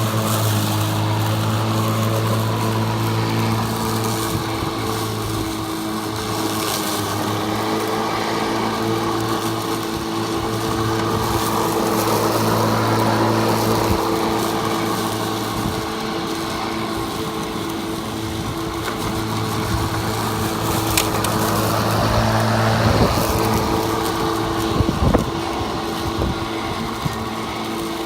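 Electric lawn mower running steadily with a constant motor hum while cutting through tall grass, with a few sharp knocks in the second half.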